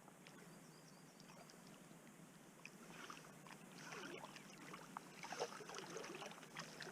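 Faint river water gurgling and lapping, with scattered small splashes and clicks that grow a little louder from about halfway through.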